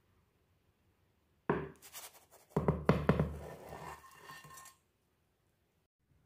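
Kitchen utensil scraping and knocking on a hard surface: a run of sharp, scratchy strokes and clicks lasting about three seconds, starting suddenly a second and a half in.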